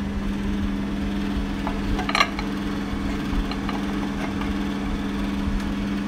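Steady hum of a BPL convection microwave oven. About two seconds in, a metal baking tray clinks sharply as it goes into the oven, followed by a few light taps.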